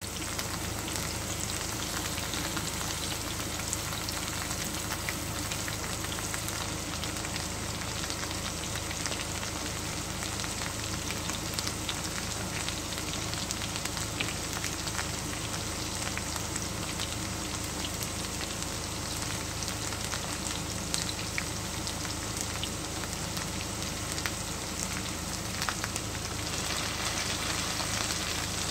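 Potato wedges and fries sizzling in shallow oil in a frying pan: a steady hiss dotted with fine crackles, growing a little louder near the end.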